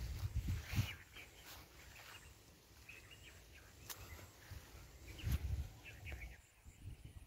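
Outdoor ambience: scattered short bird chirps over low rumbling bursts of wind on the microphone, with a single sharp click about four seconds in.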